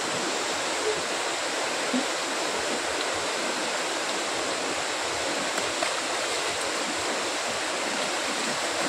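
Shallow river rushing over rocks and rapids: a steady, unbroken rush of flowing water.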